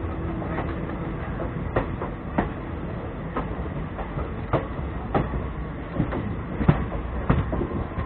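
Passenger train running along the track, a steady low rumble with sharp wheel clicks over the rail joints at uneven intervals, heard from beside an open carriage window.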